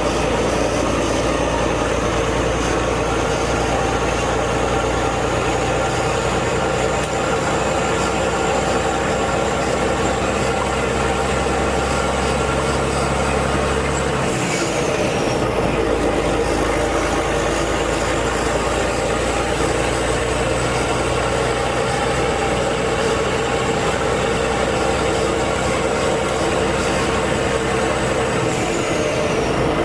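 Straight-piped Caterpillar C15 diesel truck engine running under way: a steady low drone with a high whine above it. About halfway through, and again near the end, the whine falls away and the low drone drops out briefly before picking up again.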